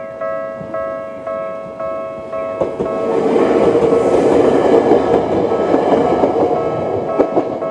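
Japanese level crossing electronic warning bell of the Tokyu type, ringing at about two strokes a second. About two and a half seconds in, an Ueda Electric Railway 1000 series electric train starts passing over the crossing, its wheels on the rails growing loud and nearly drowning the bell, with a few sharp clicks of wheels over rail joints near the end.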